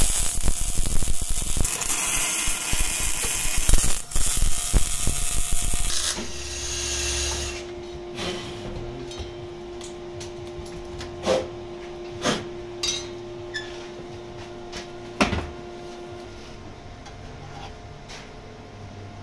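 Arc welding on a steel car subframe: a loud, dense, sputtering crackle for about six seconds that then stops. Afterwards a steady hum remains, with a few sharp metallic knocks as the part is handled.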